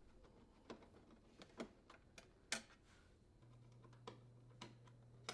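Faint, scattered light clicks of short screws being unthreaded from a dishwasher's metal door and handled, about six in all, with a faint low hum joining in about three and a half seconds in.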